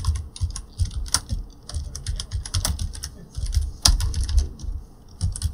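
Typing on a computer keyboard: a quick, uneven run of key clicks, with two louder keystrokes, one about a second in and one near four seconds in.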